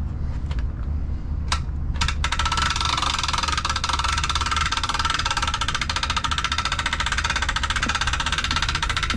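Steady low engine hum with a few sharp clicks. About two seconds in, a loud, fast, even mechanical rattle starts and keeps on.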